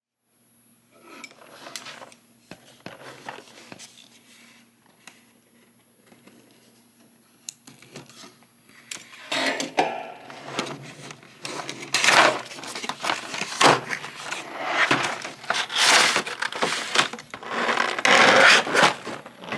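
Toy packaging being handled as a plastic figure tray is worked out of its cardboard box: faint scraping and light handling at first, then loud, dense plastic crinkling and rustling from about nine seconds in.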